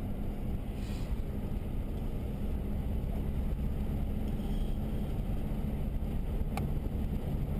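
Steady road and engine noise inside a moving car's cabin, with a single sharp click near the end.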